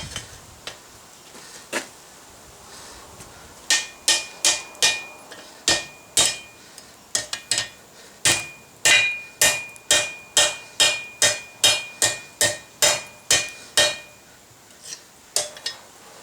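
Blacksmith's hand hammer striking hot mild steel on an anvil, forging a loop into the stock: a few seconds of near-quiet with a single blow, then a long steady run of about two to three blows a second with a high ringing tone from the anvil over them, and a few last blows near the end.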